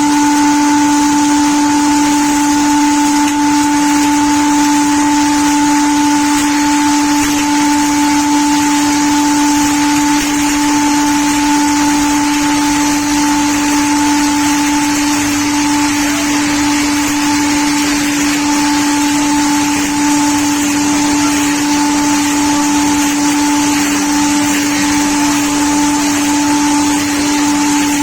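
SPT-280t milling-and-sawing machine running with a steady, loud high-pitched whine from its spinning side cutters and circular saw blades, over a broad hiss.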